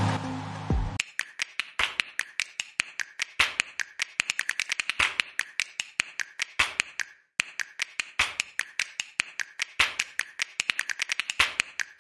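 Rapid, irregular sharp clicks, several a second, with a brief pause about halfway through; background music fades out in the first second.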